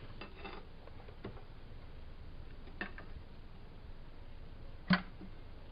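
A few faint metallic ticks, then one sharp click about five seconds in, as the Onix 1.0 engine's flywheel is pushed and shifts toward the pulley end. This is a sign of excessive axial play, measured at about 1.20 mm where 0.10 to 0.20 mm is normal.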